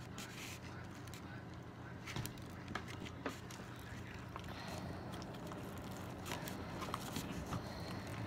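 Faint scattered clicks and crinkling of hands handling slime-making supplies, over a low steady hum.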